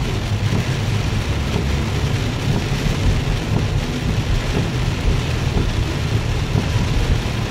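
Heavy rain pouring down on a car, heard from inside as a steady hiss over a low rumble.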